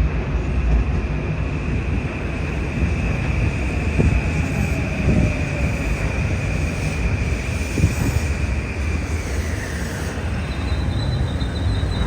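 Electric passenger train passing at speed on the New Haven Line, with a steady rumble of wheels on rail and a high whine that drops in pitch near the end as it goes by.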